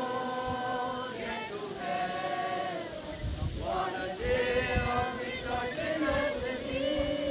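A crowd of mourners singing a hymn together in long held notes. Some low rumbling comes in about halfway through.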